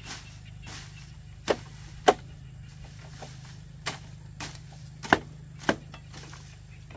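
A series of sharp knocks or chopping strikes at an uneven pace, several of them much louder than the rest, over a steady low hum.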